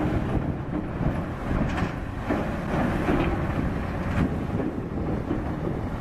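Wind buffeting the microphone over the low rumble of a Caterpillar 320D excavator at work, with a few short crunching scrapes as its bucket bites into a large block of packed snow.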